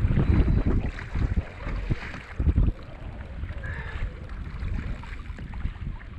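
Wind buffeting the microphone on open water, gusting hard for the first two or three seconds and then easing, over the wash of choppy sea around a kayak.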